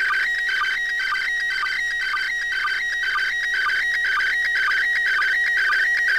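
Slow-scan TV (SSTV) image signal from the International Space Station in PD120 mode, played through a Baofeng UV-5R handheld radio's speaker. It is a continuous stream of high beeping tones that jump between a few pitches, with a short lower blip marking each new image line about twice a second.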